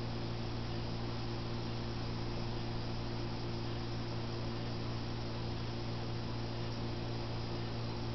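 A steady low hum with a layer of even hiss underneath. No distinct knocks or taps stand out above it.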